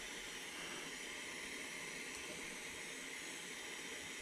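LEXIVON LX-770 butane soldering iron burning with a steady hiss, its flame turned up to high while it heats a heavy 8-gauge battery cable.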